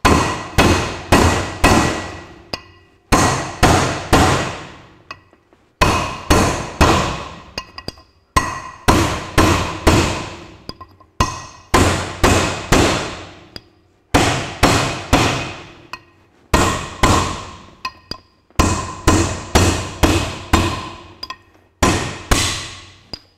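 Hammer striking a steel drift held against the ring gear of a Ferguson TE20 flywheel, driving the old ring gear off: sharp metal-on-metal blows in bursts of three to five, about two or three a second, each ringing briefly, with short pauses between bursts.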